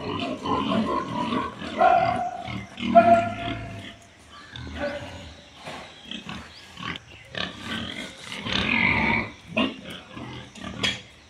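Several domestic pigs calling in short, irregular grunts, with a couple of higher held squeals about two and three seconds in, the second the loudest.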